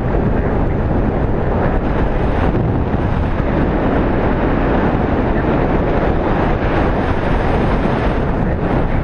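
Steady, loud rush of wind on the microphone.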